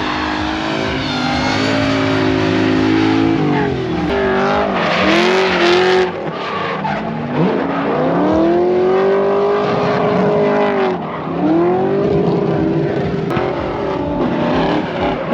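Drift cars on a track: engines revving high and dropping off several times as they slide through the corners, with tyre squeal.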